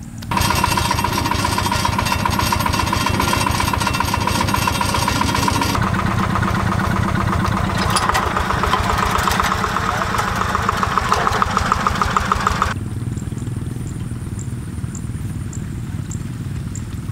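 Two-wheel hand tractor's single-cylinder diesel engine running with a fast, even chugging. The sound changes abruptly about six seconds in and again near thirteen seconds, and is quieter in the last few seconds.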